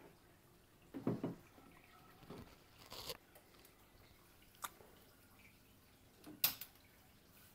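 Handling noises from an aquarium siphon hose and tube: a few short knocks and clicks a second or so apart, the loudest about six and a half seconds in.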